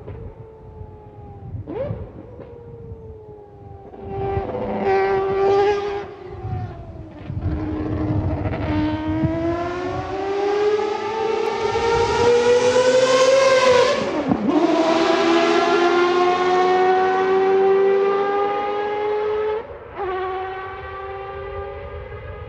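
Mazda 787B's four-rotor rotary engine being driven, with a high, siren-like howl. It blips briefly, then climbs steadily in pitch under acceleration, drops sharply on a gear change, climbs again, and then eases off to a lower, steadier note near the end.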